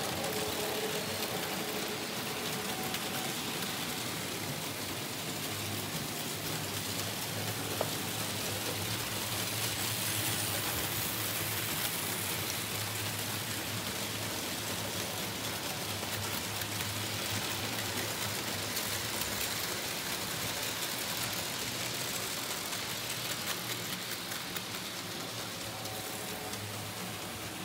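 Märklin H0 model trains running on metal M track: a steady rattle of wheels over the rails and joints, with a low hum underneath.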